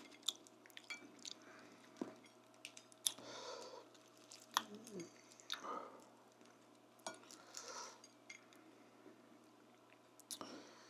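Close-miked chewing of food, with wet mouth sounds and scattered sharp clicks, coming in short spells a couple of seconds apart.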